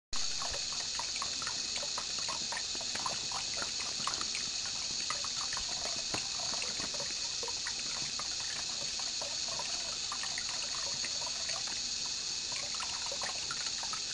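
Bathroom faucet running a thin stream into the sink basin, a steady trickle broken by small irregular splashes where a cat laps at the falling water.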